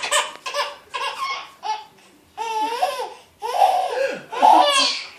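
Baby laughing hard in repeated bursts, with a short pause about two seconds in.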